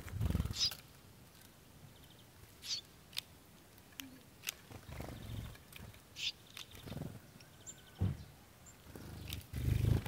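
Eurasian tree sparrows at a plastic tube feeder: a few short high chirps and scattered sharp clicks of beaks tapping the feeder. Several low rumbling thumps close to the microphone are the loudest sound, and the strongest comes just before the end.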